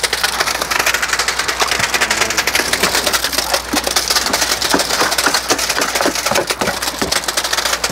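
Wet concrete pouring from a concrete pump's delivery hose into a foundation trench: a dense, steady crackling rattle of stones and slurry, with a steady low hum underneath.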